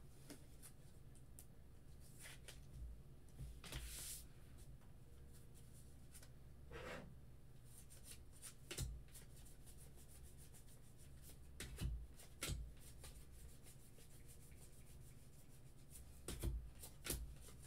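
Baseball trading cards being thumbed through and slid off a stack by hand: faint scattered rustles and light ticks of card stock, over a low steady hum.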